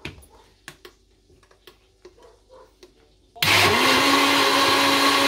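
A few light clicks, then about three and a half seconds in a Moulinex jug blender's motor switches on, rising quickly in pitch to a steady, loud whir. It is blending chopped watermelon with lemon juice and sugar.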